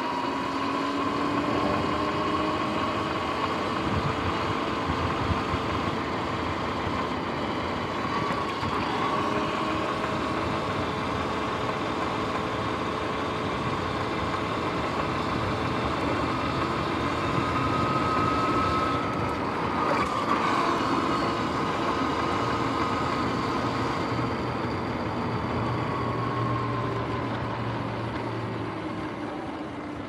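Sur-Ron X electric dirt bike under way, its motor and drive whining in several pitches that rise and fall with speed over a steady rush of wind and tyre noise. The whine falls away as the bike slows near the end.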